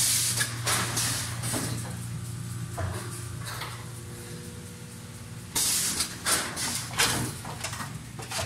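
Vertical form-fill-seal packaging line running: a steady low machine hum with bursts of air hiss and a few short mechanical knocks. The hiss is loudest for about a second at the start and again for about two seconds from just past halfway.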